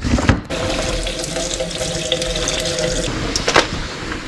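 Water running from a tap into a stainless steel sink, a steady splash. There is a knock right at the start and a short sharp click about three and a half seconds in.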